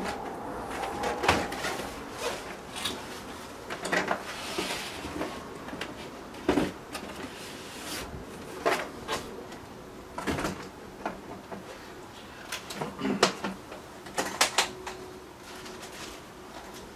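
Boxes and a hard transmitter carrying case being handled and set down on a wooden table: irregular knocks, clicks and cardboard rustling.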